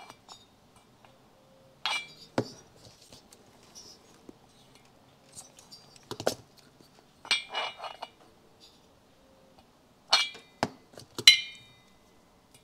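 Light metallic clinks and taps as a steel vernier caliper and a piston are handled against an aluminium two-stroke motorcycle cylinder and set down on the bench. About eight scattered knocks, several ringing briefly, the loudest near the end.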